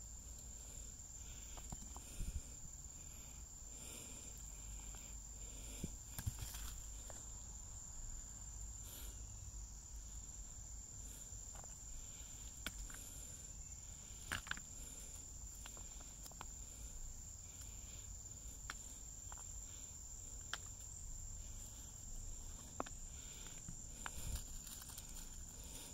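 Steady high-pitched insect chirring, with scattered light clicks and taps over it.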